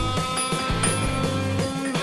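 Background music: a rock track with guitar and a steady beat.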